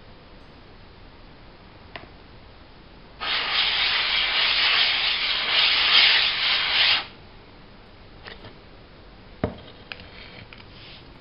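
JCK combination whetstone rubbed face down over loose F220 silicon carbide grit on a flat plate, lapping the stone flat: a loud, gritty scraping that lasts about four seconds and surges with the strokes. A sharp knock follows near the end, then a few light scrapes.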